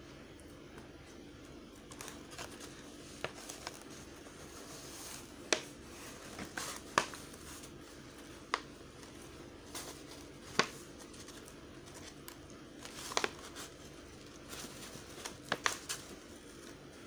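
Stiff paper being handled: scattered sharp clicks and crackles as a paper-covered tube is turned in the hands and a paper strip is fitted around its end, over a faint steady hum.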